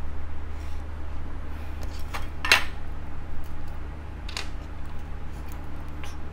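Alligator-clip test leads and a small plastic wire connector being handled and clipped together: a few sharp clicks and clacks, the loudest about two and a half seconds in, over a steady low hum.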